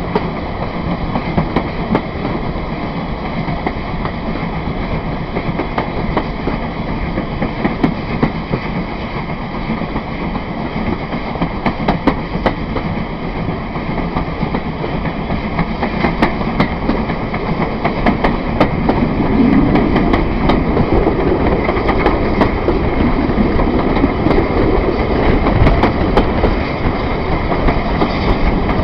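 Steam locomotive and its train running along the line, heard from the carriage just behind the engine: a steady rumble with wheels clicking over the rail joints. It grows louder about two-thirds of the way through.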